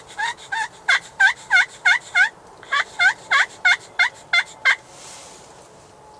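Turkey yelping: a long series of evenly spaced yelps, about three a second, with a brief pause partway through, stopping about five seconds in.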